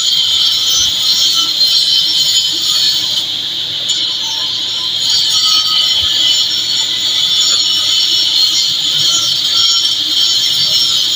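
Oxygen-gas cutting torch hissing steadily and loudly as it cuts through a steel pile, a high-pitched hiss that holds throughout.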